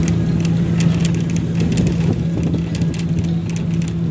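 Inside a moving bus: the engine runs with a steady low hum, over road rumble and scattered light rattles and clicks from the bus body and fittings.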